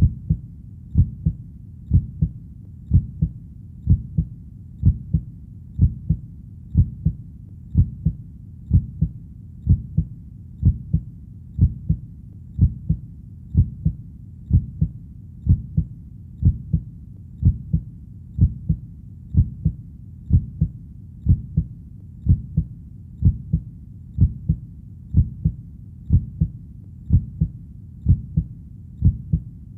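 Heartbeat, a steady low lub-dub repeating about once a second.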